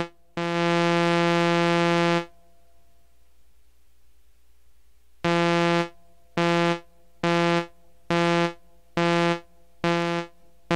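Behringer 2600 synthesizer's oscillator 3 note, switched on and off through its gate by a slow square-wave LFO from oscillator 2. The note holds for about two seconds, stops for about three, then returns as short evenly spaced notes a little over once a second as the square wave's frequency is turned.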